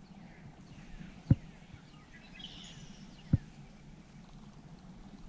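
Two sharp, dull thumps about two seconds apart, with faint bird chirps in the background.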